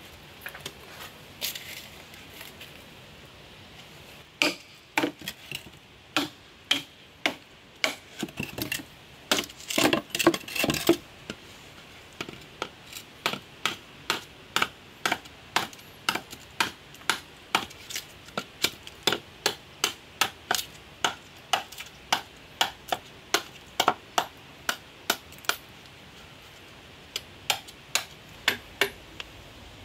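Large knife chopping into a dry bamboo section resting on a rock: sharp knocks starting a few seconds in, a quicker flurry, then a long steady run of about two strikes a second.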